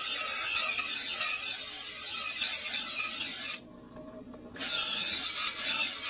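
Spring-steel knife blade being ground on a spinning grinding wheel: a steady hiss of grinding that breaks off for about a second midway while the blade is lifted off the wheel, then starts again.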